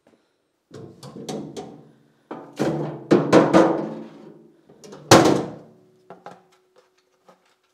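Hand brush and plastic dustpan knocked against a metal trash can to empty them: a run of hollow, drum-like knocks with the can ringing after each. The loudest bang comes about five seconds in, followed by a few light taps.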